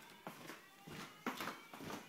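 Fire alarm drill tone sounding faintly from a distant evacuation speaker, with a few soft knocks.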